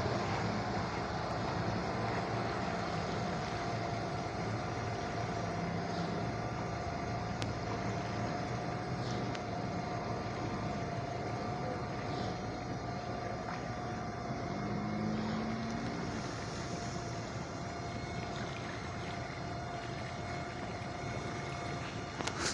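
A narrowboat's engine running steadily while under way, with a steady high whine above the engine sound and water noise.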